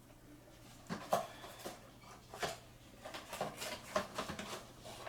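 Irregular rustles and light knocks of packaging and small objects being moved around by hand, as someone rummages for misplaced cards.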